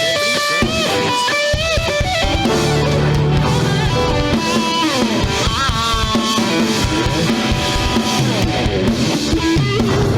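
Electric guitar playing a lead solo with bent notes and vibrato. The drums and bass come in fuller about two and a half seconds in and carry on under the guitar.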